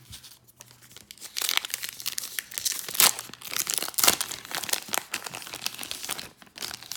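The foil wrapper of a Topps Heritage baseball card pack being torn open and crinkled in the hands, a dense crackling that starts about a second in and stops shortly before the end.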